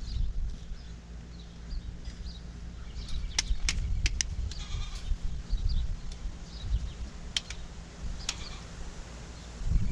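Wind buffeting the microphone with a low rumble, while goats bleat in the background. A few sharp clicks come a little past the middle.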